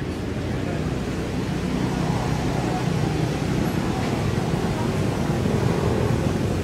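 Steady low engine rumble, like nearby motor traffic, slowly growing louder.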